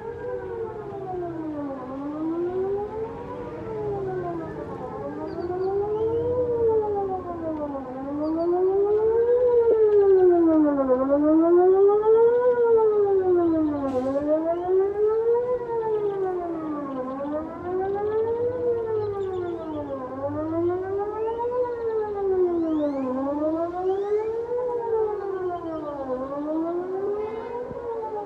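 Whelen WPS 2909 electronic outdoor warning siren sounding a wail that rises and falls about once every two seconds. For the first several seconds a second wail overlaps it out of step, and the sound swells louder for a few seconds about a third of the way in.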